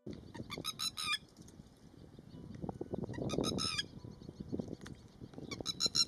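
Red-wattled lapwing calling: three quick runs of sharp, repeated notes, about half a second in, at about three seconds, and near the end.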